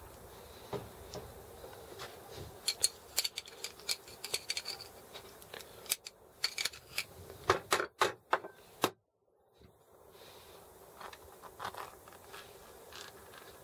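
Small metal parts of a Sturmey-Archer S5C internal gear hub clicking and clinking as they are handled and fitted by hand. The clicks run quick and sharp through the middle, cut out abruptly for under a second, and then return sparser and fainter.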